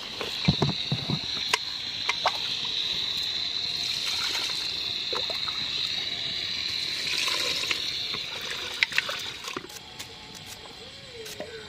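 Running water as raw mutton pieces are washed by hand in a vessel, with scattered clicks and knocks of meat and utensil. The water stops a little past nine seconds in.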